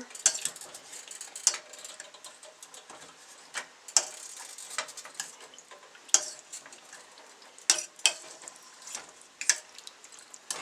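Canned whole tomatoes being mashed with a masher in a hot pan: irregular clacks of the masher against the pan over a faint sizzle.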